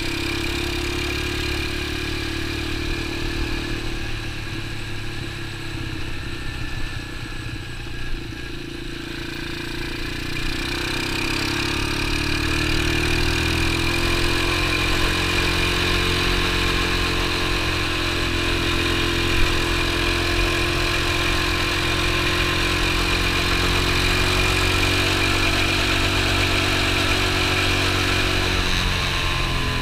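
X19 super pocket bike engine running under way, heard from on the bike. It runs softer for about the first ten seconds, then speeds up and holds a higher, steadier note, easing off just before the end.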